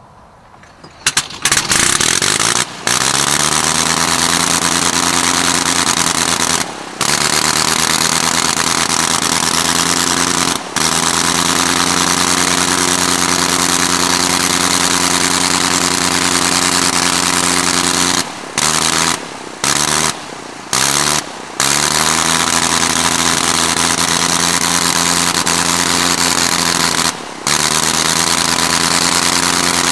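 Sopwith Camel's Gnome rotary engine catching about a second in after the propeller is swung by hand, then spinning up and running steadily. It cuts out briefly several times and picks back up after each, the way a throttle-less rotary's speed is held down by switching its ignition.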